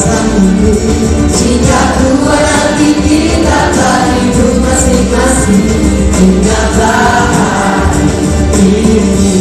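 Music: a song over a backing track with a steady bass, sung by several voices together like a choir.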